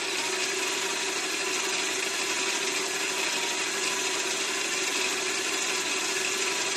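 Mini lathe running with a fly cutter in the chuck, taking a light finishing cut of less than a thousandth, while a cordless drill turns the cross-slide feed screw. A steady mechanical whir with a constant hum.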